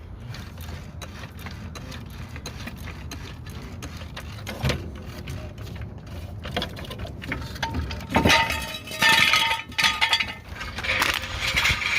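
Clicks, knocks and clatter of things being handled, over a low steady hum, with a louder stretch of scraping or rattling noise about eight to eleven seconds in.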